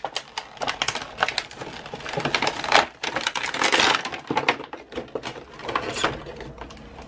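Stiff, aged plastic blister packaging crinkling and crackling as it is handled, a dense run of irregular crackles and snaps that dies down near the end.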